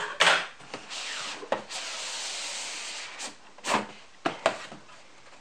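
Cardboard sliding on cardboard: the printed outer sleeve of a Microsoft Surface Pro 4 box being pulled off the inner box. It starts with a short sharp scrape, then a steady rubbing slide lasting about two seconds, and ends with a few light knocks of the boxes on the desk.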